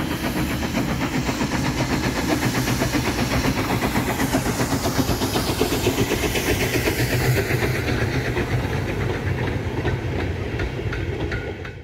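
Steam tank locomotive hauling a train of loaded mineral wagons and a brake van past, its exhaust beats mixed with the wagons' wheels clicking and rumbling over the rail joints in a steady rhythm. The sound cuts off suddenly at the end.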